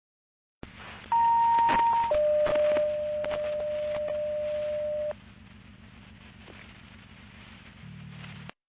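Two-tone sequential page over a fire dispatch radio channel, heard through a scanner: a higher tone for about a second, then a lower tone held for about three seconds, over radio hum and static. These are alert tones that set off a fire station's pagers. The channel stays open with quieter static and then cuts off suddenly.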